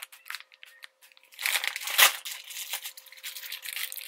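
Clear plastic bags around squishy toys crinkling as they are handled, in irregular bursts that are loudest about a second and a half to two seconds in.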